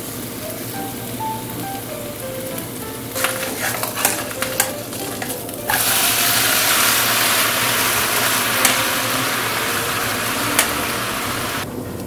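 Cheese and shredded potato frying in a small non-stick pan: a steady sizzle, with a few sharp clicks of a spatula against the pan from about three seconds in. The sizzling then jumps much louder about six seconds in and cuts off abruptly just before the end.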